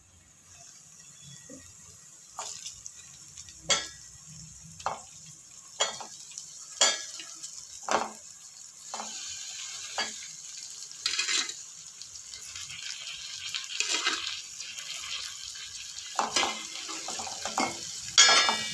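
A steel spoon and whole stuffed brinjals knocking against an aluminium pot as the brinjals go into the masala, a knock about once a second. In the second half the spoon stirs and scrapes in the pot over a light sizzle, with ringing clinks of spoon on pot near the end.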